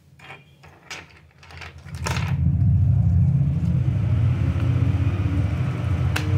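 A few light clicks of small plastic toy pieces being handled and fitted together, then about two seconds in a loud, steady low rumble sets in and runs on, with one sharp click near the end.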